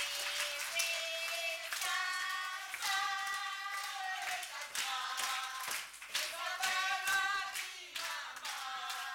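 Several voices singing together while hands clap along in a steady rhythm.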